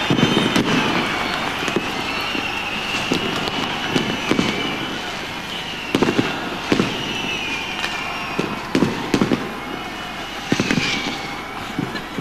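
New Year's fireworks going off: irregular sharp bangs over a steady crackle, with high wavering whistles that rise and fall in pitch.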